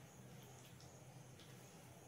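Near silence: a faint steady room hum with a few faint soft clicks.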